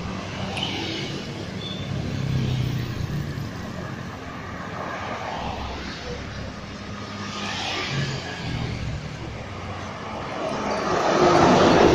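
Highway traffic going past: vehicle engines and tyres swell and fade a few times over a steady low drone. The loudest swell comes near the end as a bus approaches.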